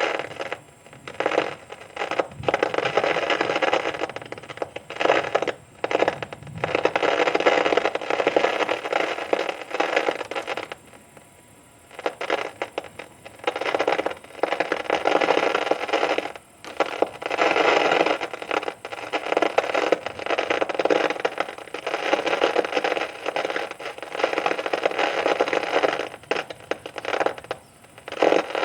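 Thunderstorm noise: a dense rushing hiss that cuts out abruptly and briefly again and again.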